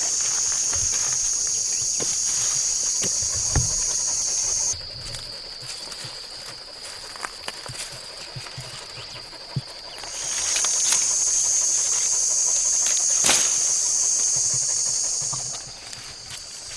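Cicadas droning in a loud, steady, high-pitched buzz that cuts off about five seconds in, starts up again about ten seconds in and stops near the end. A few light knocks and rustles in dry leaf litter sound beneath it.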